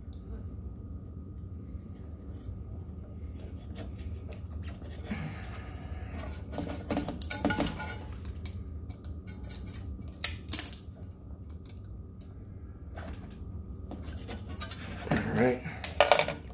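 Scattered clicks, knocks and scrapes as a knobby scooter tire is worked onto its metal wheel rim by hand, rubber rubbing against the rim and a metal tool clinking. The sounds come more densely around the middle and again near the end.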